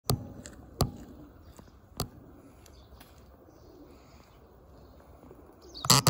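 Faint bird calls in the distance, with three sharp clicks in the first two seconds. Loud clattering handling noise from the smartphone and its clip-on telephoto lens begins just before the end.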